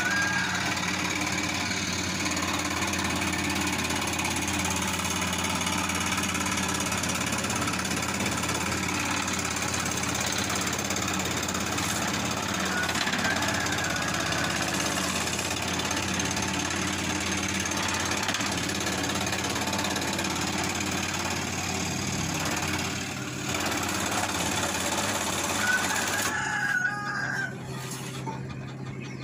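Electric scroll saw running steadily, its blade stroking rapidly up and down as it cuts through a block of wood; it is switched off near the end.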